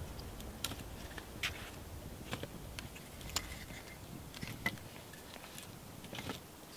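Scattered faint snaps and clicks of dry sticks and kindling as a small campfire is laid and lit, about seven sharp ticks spread irregularly over a low background hiss.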